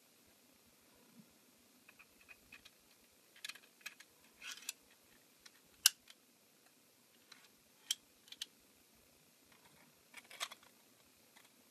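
3D-printed plastic crossbow parts clicking and scraping together as they are handled and fitted: scattered sharp clicks and short rattles, the sharpest about six seconds in.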